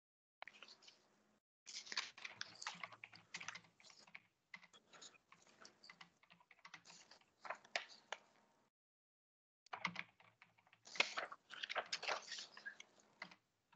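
Typing on a computer keyboard, heard faintly through a video-call microphone: quick runs of key clicks broken by two short pauses.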